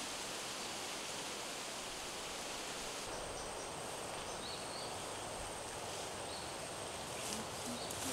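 Steady outdoor ambience in tropical bush: an even hiss, with a thin high insect whine coming in about three seconds in and a few short high chirps. Near the end, rustling footsteps through tall grass come closer.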